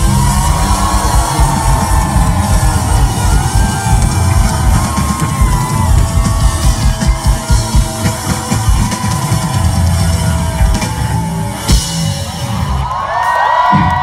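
Rock band playing live: a full drum kit pounding under electric guitar and voices. The drumming breaks off about twelve seconds in, and shouting voices rise near the end.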